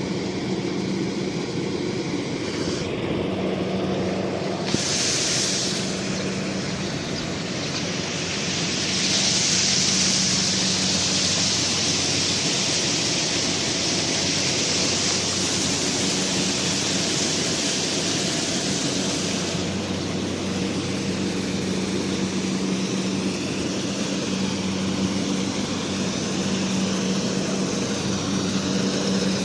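Rice harvester's engine running at a steady pitch. A steady hiss comes in sharply about five seconds in and stops about two-thirds of the way through.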